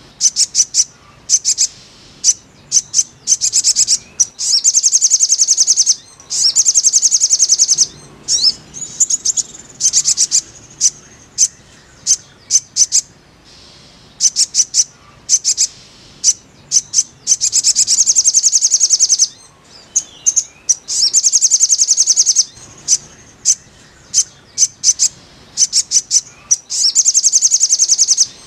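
Little spiderhunter (sogon) calling: single sharp high chips alternate with fast rattling runs of repeated notes, each run lasting one to two seconds.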